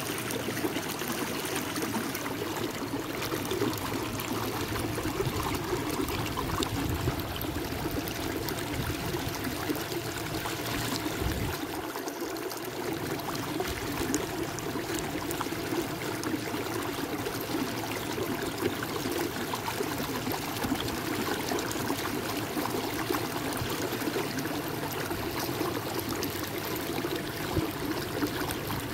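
Water lapping and trickling along the hull of a moving kayak, a steady wash of small splashes.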